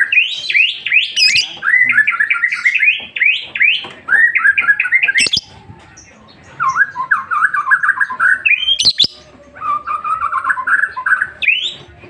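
Fischer's lovebird singing in rapid runs of short, quick chirps: the fast 'ngetik' (typing) chatter of a lovebird in song. It comes in three long bouts with brief pauses about five and nine seconds in, and a sharp rising squeak ends each bout.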